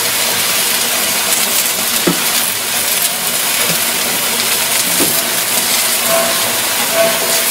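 Onion, tomato and pepper filling frying in oil on a hot metal planchita tray, a steady sizzle.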